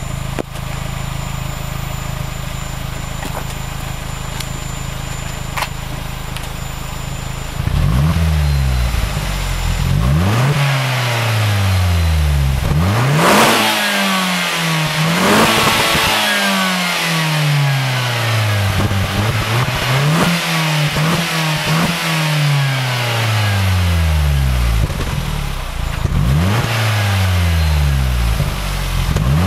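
Opel Corsa OPC's 1.6-litre turbocharged four-cylinder engine idling steadily, then blipped about a dozen times from around eight seconds in, each rev rising quickly and dropping back toward idle.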